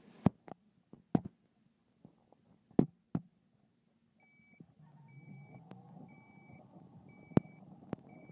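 A few sharp knocks, then an electronic beeper sounding short two-pitched beeps about once a second, five times, over a low hum of store background. Another sharp knock, the loudest event along with the earlier ones, comes about a second before the end.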